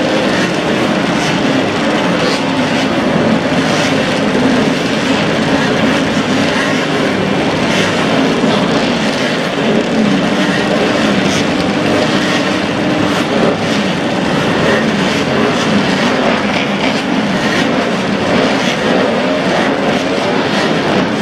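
Several vintage motorcycle engines, from bikes built before 1972, running together in a steady, unbroken din in which no single bike stands out.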